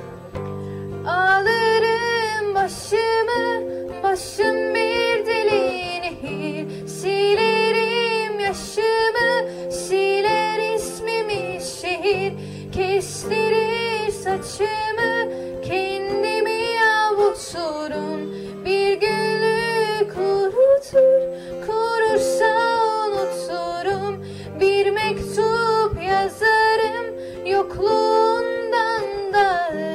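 A teenage girl singing into a handheld microphone with acoustic guitar accompaniment, her held notes wavering with vibrato.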